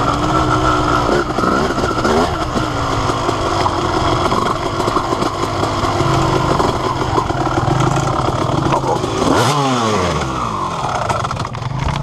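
Honda CR250R's single-cylinder two-stroke engine being ridden hard, the revs rising and falling with throttle and gear changes. About nine and a half seconds in the revs fall sharply and then climb again.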